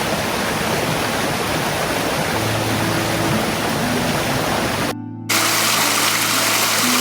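Rushing water of a forest creek or small waterfall, a steady loud hiss, with soft background music underneath. About five seconds in the water sound drops out for a moment, then returns with more hiss.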